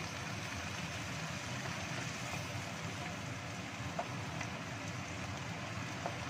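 Green beans and carrots sizzling steadily as they are stir-fried in a wok with a wooden spatula, with two sharp clicks of the spatula against the pan about four and six seconds in.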